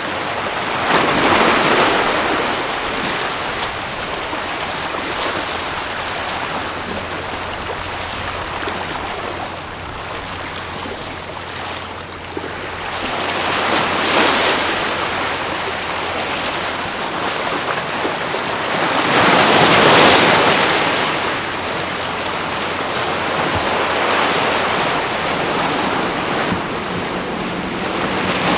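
Surf washing against the shore, swelling three times and loudest about two-thirds of the way through, with wind on the microphone and a low steady hum underneath.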